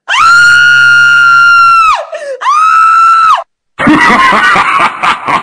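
A woman's high-pitched scream, held steady for about two seconds, then a second shorter scream, each sliding up at the start and dropping away at the end. After a brief gap near the end comes a loud, jumbled burst of noise.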